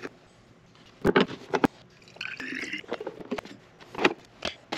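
Water poured into the plastic reservoir of an espresso machine, a short splashing pour in the middle, with sharp knocks and clicks as the pitcher, tank and lid are handled.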